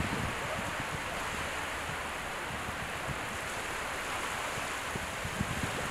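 Small waves washing steadily onto a sandy beach, with a low rumble of wind on the microphone.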